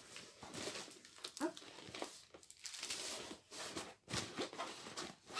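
Rustling and scraping of a folding storage box as a stiff bottom panel is pushed down into place inside it, with a few sharp knocks among the shuffling.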